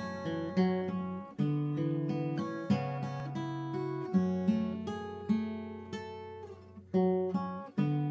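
Solo acoustic guitar played fingerstyle: a picked melody over ringing bass notes, with a new chord plucked every second or so and a brief drop just before the last one.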